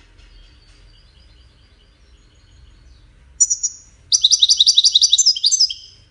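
European goldfinch singing in its cage: soft high twittering, then a loud sharp note about three and a half seconds in, followed by a loud, rapid trill of repeated high notes for about two seconds.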